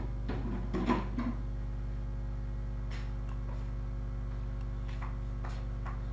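A steady low hum on the recording, with a moment of talking at the very start and a few faint clicks later on.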